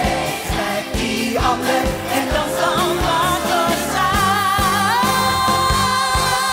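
Stage musical number: a female lead sings with a backing chorus over an upbeat band with a steady beat, about two beats a second. It rises into a long held, wavering high note near the end.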